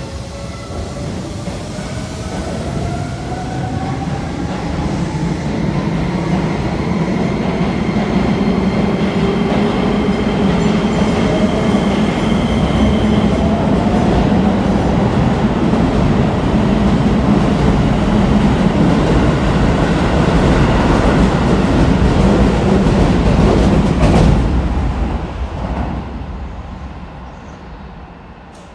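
Keisei 3050 series electric train accelerating away from a station platform. Its VVVF inverter traction motors whine in several rising tones for the first dozen seconds, while wheel and rail noise builds as the cars pass close by. The noise is loudest until the last car goes by about 24 seconds in, then drops away and fades.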